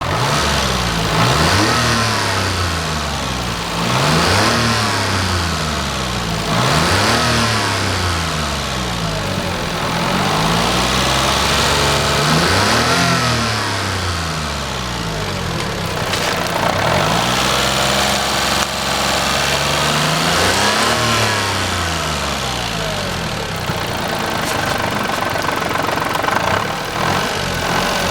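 Daihatsu Hijet engine idling and being revved repeatedly, its pitch climbing and falling back about six times. The engine has an abnormal noise (異音).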